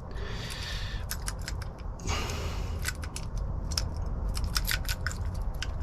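Small metallic clicks and scrapes from a shim and key blank working in a Defiant lock cylinder as it is shimmed open, with a short scraping rush about two seconds in. A low steady hum runs underneath.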